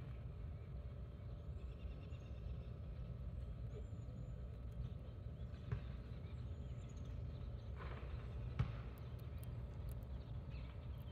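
Outdoor ambience: a steady low rumble with faint, high, distant bird chirps every second or two and two soft knocks, the louder one about three-quarters of the way through.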